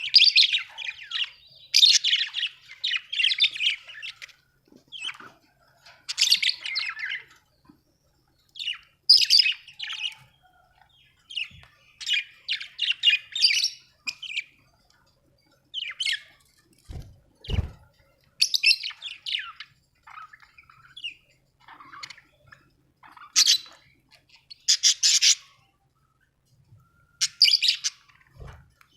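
Budgerigar chirping and chattering in short bursts about a second long, with pauses between them. A brief low thump comes about halfway through.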